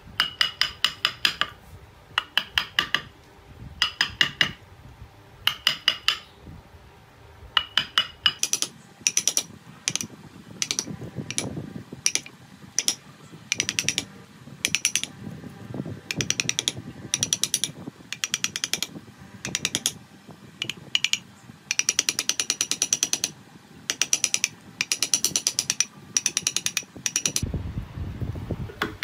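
A wooden mallet tapping a woodcarving chisel into the wood in quick runs of light blows, several a second, with brief pauses between runs. The blows come almost without a break from about 8 seconds in and stop shortly before the end. Each tap has a slight metallic ring.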